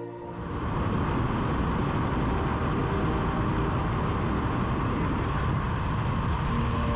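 A vehicle running steadily: a loud, even rumble with hiss that sets in as music cuts off at the start.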